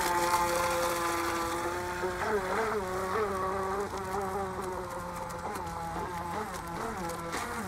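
Electric motor of an RC Snapper model speedboat running at speed: a steady buzzing whine that wavers in pitch now and then.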